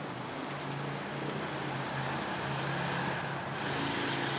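Road traffic: a vehicle's steady engine hum with tyre noise that swells near the end as it goes by. A few faint clicks sound about half a second in.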